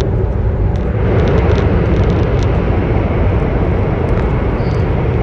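Steady low rumble of a CR400BF Fuxing electric multiple unit running on high-speed track, heard from inside the passenger cabin.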